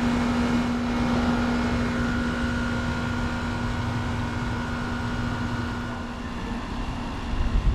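Central air-conditioner condenser running: a reciprocating compressor hums steadily, which by its sound is taken for a Trane Climatuff recip, under the rush of the condenser fan. A higher steady whine joins for a few seconds in the middle, and the hum fades a little near the end.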